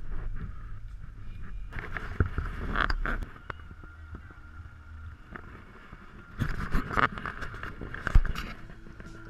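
An off-road vehicle crawls over a rutted mud track with its engine running low and steady. Twice it breaks into a spell of rattling and knocking as the body and suspension jolt over the ruts. The loudest is a single sharp bang near the end.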